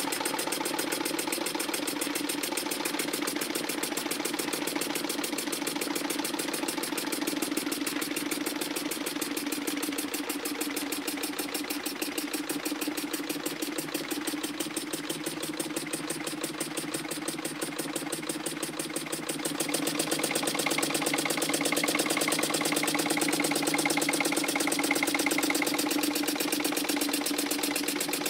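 A model wobble-plate engine with a brass flywheel runs steadily on compressed air, making a rapid, even beat. It gets somewhat louder about two-thirds of the way through.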